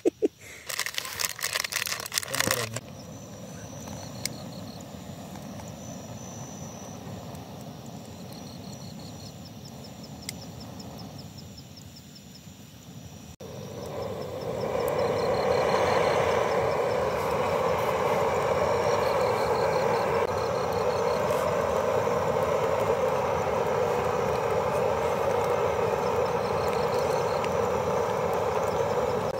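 A small packet is torn open and crinkled in the first couple of seconds. A quieter stretch follows with faint repeated chirps. From about halfway, the butane camping stove's burner roars steadily under a kettle.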